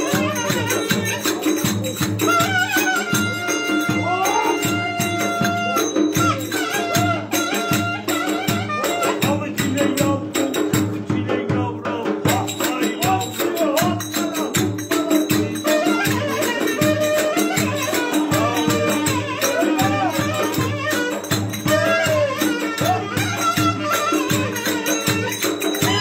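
Live Turkish folk dance music: a clarinet plays a winding, sliding melody over a steady davul drum beat, with fast clicking percussion on top.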